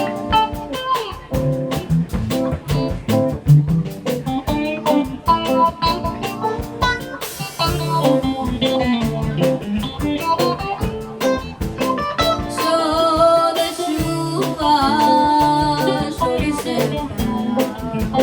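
Music: an instrumental stretch of a Brazilian samba-style song, with plucked guitar over a steady beat.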